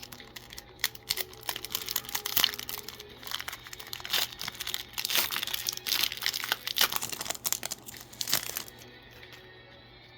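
Foil booster pack wrapper crinkling and tearing as it is ripped open and handled: a dense run of sharp crackles that starts under a second in and stops shortly before the end. Faint background music plays underneath.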